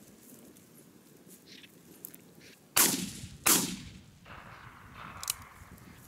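Two loud shotgun shots in quick succession, about three quarters of a second apart, each dying away after the blast.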